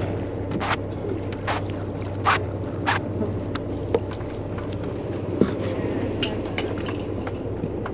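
Boat engine running with a steady low hum, with a few sharp clicks in the first three seconds and lighter ticks after.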